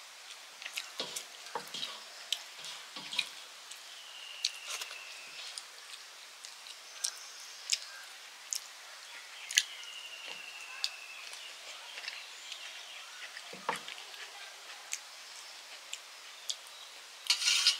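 Close-up eating by hand from a brass plate: wet mouth smacks and finger-licking clicks, with fingers scraping the plate to gather the last rice and gravy. A louder noisy burst comes near the end.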